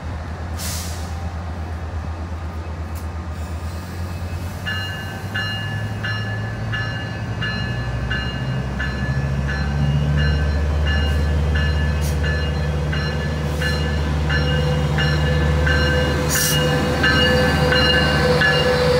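Metrolink F125 diesel locomotive pulling into the platform, its engine running with a steady low drone that grows louder as it draws close. From about five seconds in, its bell rings over and over, a bit under twice a second. A rising high squeal comes in near the end.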